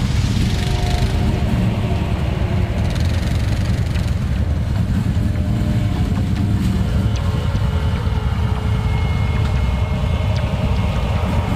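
ATV engine running under load at low speed as the quad climbs a rocky creek bed, with a steady level throughout.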